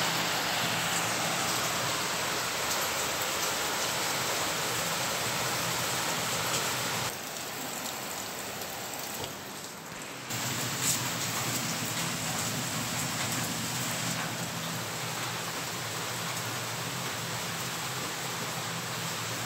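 Heavy rain falling in a dense, steady hiss. It turns quieter for about three seconds near the middle, then comes back with a single sharp tick.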